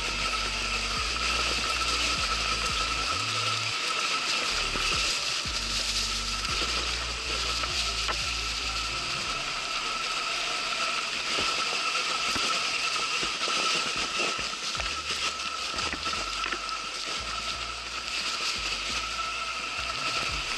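Electric enduro motorcycle ridden off-road: a steady high electric-motor whine over a continuous mechanical rattle of chain and running gear.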